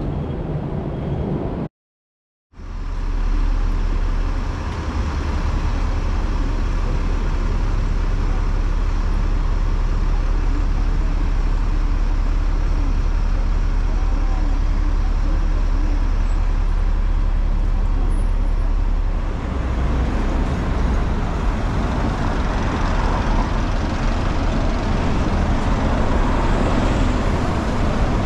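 City street traffic: a tram and double-decker buses running past close by, with a steady low engine rumble throughout. The sound cuts out for under a second about two seconds in.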